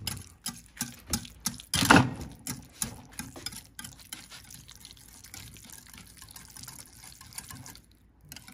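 Metal wire whisk mashing and stirring crumbled tofu on a plate. Repeated scraping knocks of the whisk against the plate come about three a second at first, with one louder knock about two seconds in, then softer and sparser strokes.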